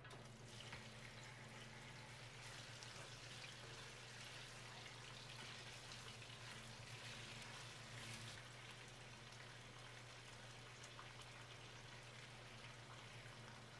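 Beef short ribs sizzling and crackling in hot oil in an enameled cast-iron Dutch oven as they brown, starting suddenly as they go into the pot.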